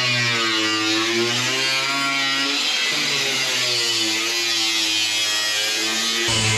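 Small angle grinder with a cut-off wheel cutting the sheet-steel front corner panel of a 1965 Corvair: a steady motor whine that sags and recovers in pitch as the wheel bites, over the hiss of grinding metal. The sound changes abruptly near the end.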